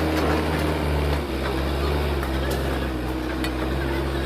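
JCB 3DX backhoe loader's diesel engine running steadily, its note dropping slightly about a second in.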